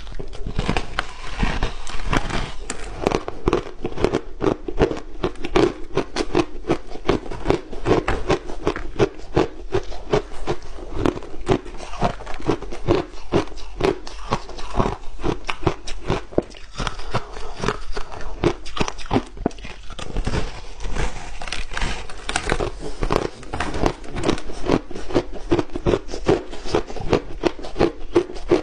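Close-miked crunching of a block of compacted crushed ice being bitten and chewed: a fast, continuous run of crackling crunches.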